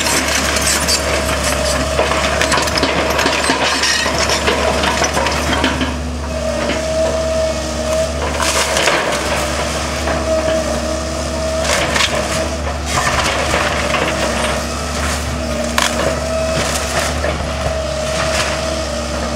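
An excavator tearing down a wood-frame house: timber crunching and splintering, with a few sharp cracks. Underneath runs a steady, wavering tone from the excavator's engine and hydraulics.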